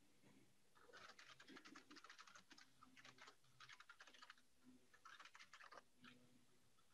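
Faint typing on a computer keyboard: several quick runs of keystrokes with short pauses between them.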